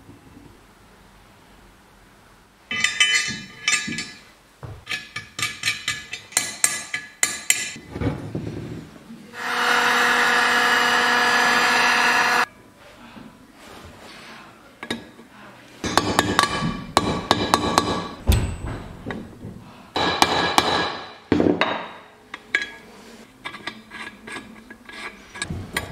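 Two bouts of rapid hammer strikes on metal workshop parts. Between them a heat gun's blower runs steadily for about three seconds and cuts off. Lighter clicks of parts being handled near the end.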